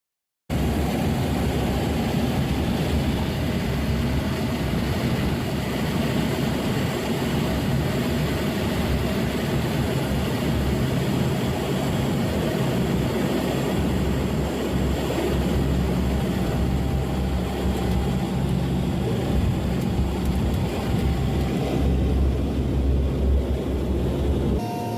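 Coast Guard HC-130 Hercules four-engine turboprop running, a loud, steady drone with a deep rumble and a faint whine above it. It starts abruptly about half a second in.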